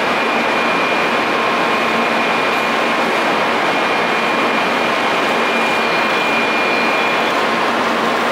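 Steady railway-station platform noise: an even rushing hiss with a thin high whine over it that stops near the end.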